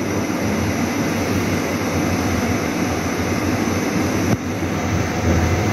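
Steady low rumbling background noise, like a running machine, with a brief dip about four seconds in.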